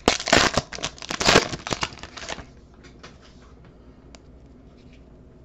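Foil trading-card pack wrapper crinkling and tearing as it is ripped open by hand, a rapid run of crackles that stops about two and a half seconds in.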